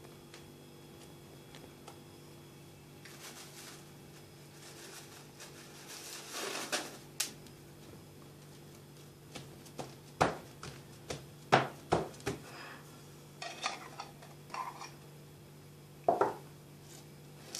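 A knife scraping and clinking against an open tin can as boiled condensed milk is scooped out and spread over a crisp wafer cake layer. A few sharp clicks and scrapes sound over a steady low hum.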